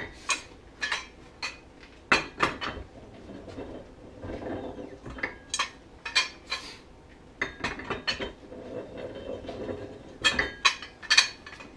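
Metal-on-metal clanks and clinks from a spider removal tool and its long metal handle bar being worked and repositioned on a snowmobile primary drive clutch, while the heated clutch spider is unscrewed. The knocks come irregularly and ring briefly, with a cluster of louder ones near the end.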